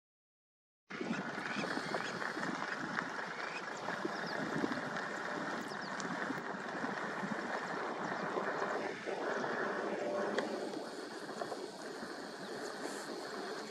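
Silent for about the first second, then steady open-savanna ambience: a dense background of many small bird calls with a faint high insect-like hum towards the end.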